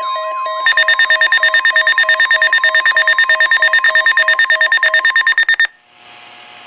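Weather radio receiver's alarm going off for a NOAA weekly test: loud, rapid pulsed beeping. It starts under half a second in and cuts off suddenly about a second before the end, leaving faint radio hiss.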